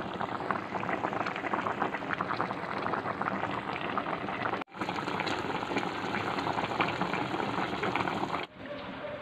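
Chicken soup with greens boiling hard in a steel pot: a dense, steady crackle of bursting bubbles. It cuts out for an instant about halfway. About a second before the end it gives way to a quieter background.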